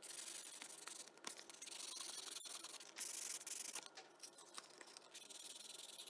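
A metal lock pick rake rubbed by hand against a sheet of sandpaper: a scratchy hiss of quick, uneven strokes, loudest a little after three seconds in. This is the final smoothing and polishing of the pick's rounded peaks.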